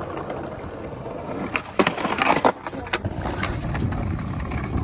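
Skateboard rolling, with several sharp clacks of the board bunched about two seconds in, then rolling on.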